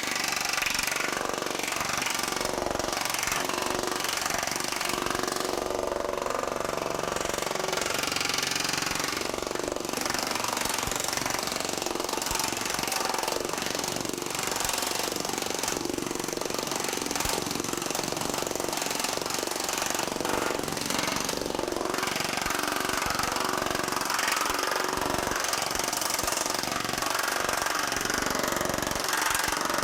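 TM Technologies pneumatic power hammer running steady, rapid blows through aluminum shrinking dies, shrinking a sheet of soft 1100 aluminum, 0.050 in thick.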